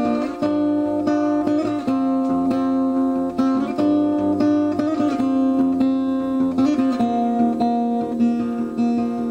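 Background music played on acoustic guitar, plucked and strummed, with held notes ringing over each other.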